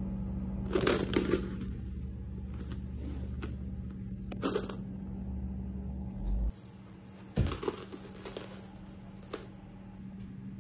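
Metal jingling and rattling in short bursts, from a feather wand cat toy with beaded and coiled metal spring parts being batted and bitten by a kitten.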